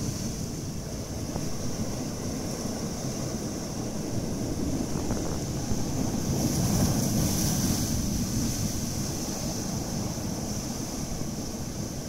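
Sea waves breaking and surging over a rocky shore: a continuous rush of churning surf that swells louder about six seconds in as a wave washes through the rocks.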